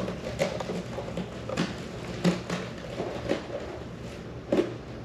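A cat pawing and clawing at a cat tree's plush hammock and sisal-rope post: irregular short scratches and soft knocks, about six in all, over a steady low hum.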